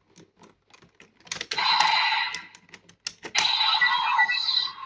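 Plastic clicks from a Kamen Rider Geats toy transformation belt and its Decade and OOO Raise Buckles being worked by hand. The clicks are broken twice by bursts of the belt's electronic sound effects through its small built-in speaker, the first about a second in and the second from about three and a half seconds in.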